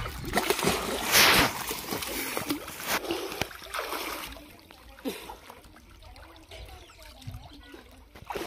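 Water splashing and sloshing in a small concrete tank as people move about in it, loudest about a second in, then quieter, scattered splashes.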